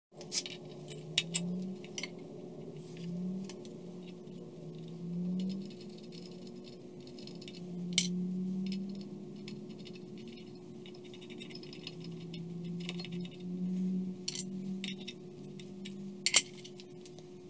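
Scattered light metallic clicks and clinks of a steel locknut and bolt being handled and fitted into the bull gear of a vintage Bertram metal lathe, with the sharpest click about eight seconds in and another near the end, over a steady low hum.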